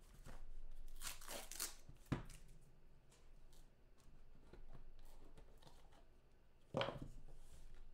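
Trading-card pack being torn open and handled: tearing and crinkling of the wrapper with small clicks, and one louder, sharp sound near the end.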